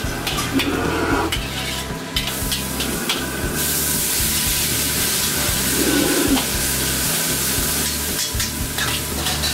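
Metal spatula scraping and clanking in a carbon-steel wok over a high flame. About two seconds in, a loud hissing sizzle starts and grows louder as ingredients hit the very hot wok, throwing up steam. The sizzle and the scraping go on together.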